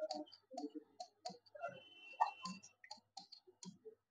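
Chalk writing on a blackboard: quick, irregular faint taps and scratches as letters are formed, with a brief high squeak of the chalk about two seconds in. The tapping stops just before the end.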